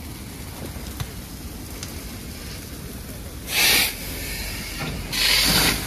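Fire hose nozzle spraying water in two short bursts of hiss, the first about three and a half seconds in and the second near the end, over a steady low rumble.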